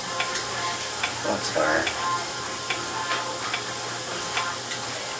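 Soft crackling and scattered small clicks of fingers scrunching and tousling damp, curly hair, over a steady hiss.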